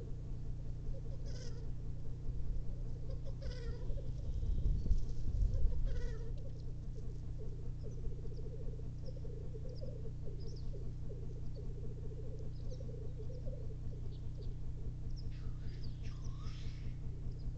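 Male black grouse lekking: a continuous low, bubbling rookooing chorus, with a few higher calls breaking in over it. A low rumble swells and fades about five seconds in.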